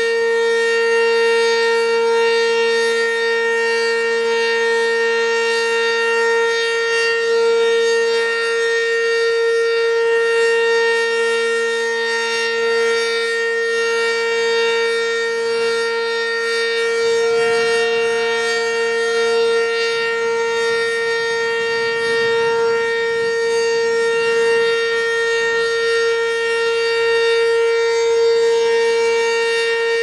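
Sentry 10V2T outdoor warning siren sounding a steady alert tone during a test: one unbroken, loud held pitch with its overtones, the loudness wavering only slightly.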